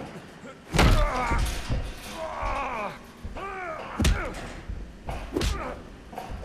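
Fistfight sound effects: heavy punch impacts, with grunts and groans of effort and pain between them. The biggest blows land about a second in, around four seconds and again at about five and a half seconds.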